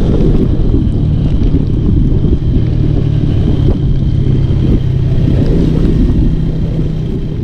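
Modified Honda Tiger motorcycle engine running at a steady speed while being ridden, with wind buffeting the microphone.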